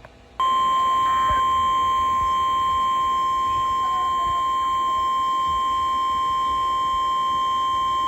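NOAA Weather Radio warning alarm tone: a single steady high 1050 Hz tone that starts about half a second in and holds at one pitch without a break. The tone is the signal that a warning broadcast follows.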